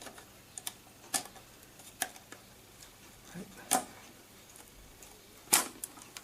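Scattered sharp clicks and taps of small plastic and metal parts being handled while the Blu-ray drive's top cover is worked open, about half a dozen in all, the loudest near the end.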